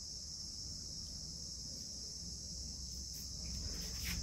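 Steady high-pitched chorus of insects droning without a break, with a couple of faint clicks near the end.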